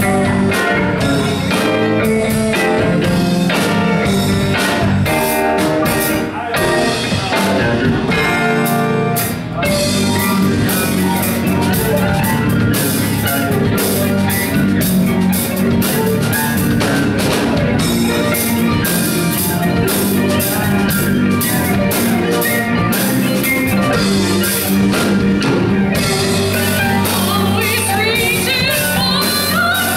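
Live rock band playing: electric guitar, bass guitar, keyboard and drum kit, with a woman singing.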